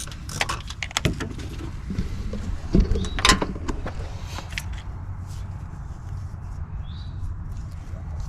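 Metal clicks and clinks of hand tools working on the engine's ICP sensor fitting, loudest about three seconds in. They die away after about five seconds, leaving a steady low hum.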